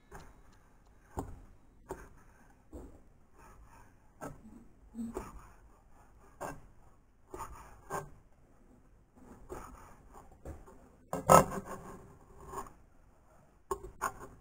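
Chef's knife cutting bacon on a plastic cutting board: irregular chops and scrapes about once a second as the blade meets the board. The loudest chops come about eleven seconds in.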